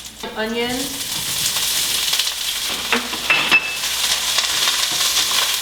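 Diced onions and garlic sizzling as they are stirred in hot olive oil in a skillet, the sizzle building about a second in, with a few clicks of the utensil against the pan.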